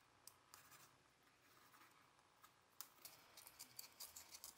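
Faint scratching of a ballpoint pen tracing an outline on a thin sheet. About three seconds in, tin snips start cutting the sheet in a quick run of small sharp snips that grows louder.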